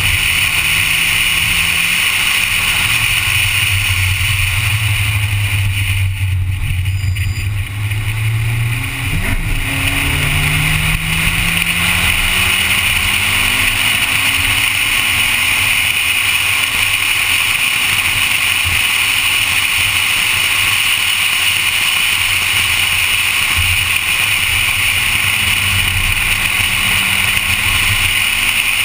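Honda Civic engine pulling hard around a race track, with a steady rush of wind and road noise. About a quarter of the way in the engine note drops briefly as it comes off the throttle, then climbs again in pitch as it accelerates.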